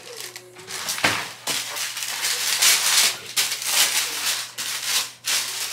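Tissue paper rustling and crinkling in repeated swells as it is pulled out of a cardboard shoebox, with a sharp tap about a second in.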